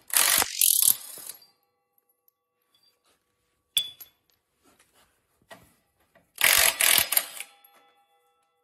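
Cordless impact gun with a socket hammering in two bursts of about a second each, near the start and about six and a half seconds in, undoing the bolts that hold a forklift's backrest. A single sharp click comes near the middle.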